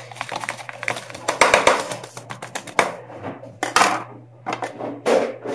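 Kitchen knife cutting through crispy breaded chicken patties against a paper plate: a quick run of crunching, scraping strokes for about three seconds, then a few separate strokes, over a steady low hum.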